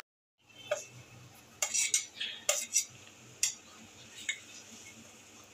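Stainless steel utensils clinking and scraping: a spoon and a steel plate knock against a steel bowl as chopped vegetables and spices are pushed into batter. About seven short, irregular clinks.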